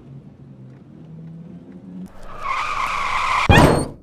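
Car engine running, then tyres screeching under hard braking from about two seconds in, ending in a loud crash about three and a half seconds in, after which the sound cuts off: a car skidding and hitting something.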